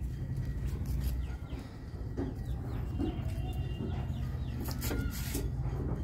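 Faint clucks and short calls of chickens over a low steady rumble, with a few brief clicks and rustles about five seconds in.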